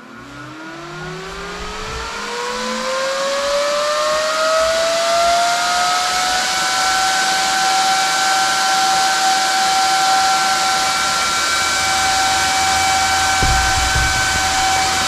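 24-volt BYD battery-pack cooling fan spinning up on a 19-volt laptop power supply: its whine rises in pitch over about six seconds, then holds steady over a loud rush of air. At 19 volts it runs at about two-thirds power.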